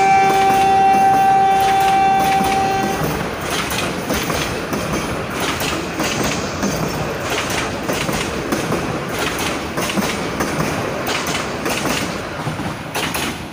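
Bangladesh Railway commuter train passing: its horn sounds one long steady note for about the first three seconds. The coaches' wheels then clatter over the rail joints in a steady rumble.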